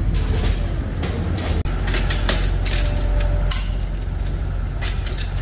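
A long-handled wrench tightening the lug nuts on a truck trailer wheel, giving several sharp metal clicks a little past the middle. A steady low machine hum runs underneath, and a short steady whine sounds near the middle.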